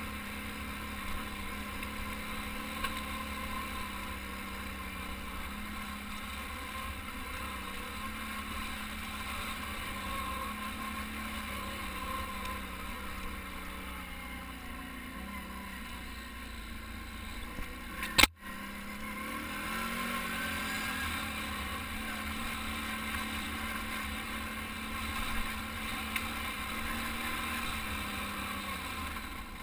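ATV engine running steadily as the quad rides a dirt trail, with trail and wind noise. A single sharp knock about two-thirds of the way through is the loudest sound.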